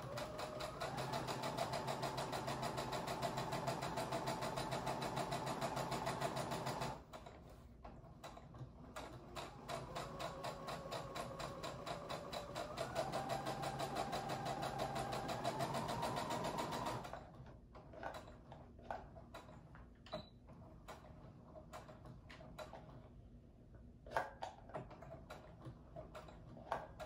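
Brother electric sewing machine stitching a seam: it runs steadily for about seven seconds, pauses briefly, then runs again for about eight seconds, speeding up partway through. After it stops, a few light clicks.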